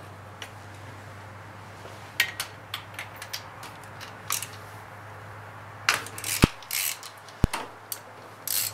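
Scattered metallic clicks and clinks of a ratchet, extension and spark plug socket being fitted onto a spark plug in an engine bay, with a denser run of clatter about six to seven seconds in. A low steady hum runs underneath.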